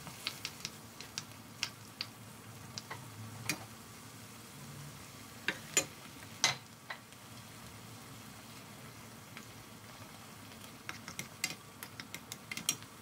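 Wooden spoon clicking and scraping against a wok as soft tofu and noodles are stirred into broth, over a faint steady simmer. The clicks come scattered at first, with a few loud knocks about halfway through and a quick run of taps near the end.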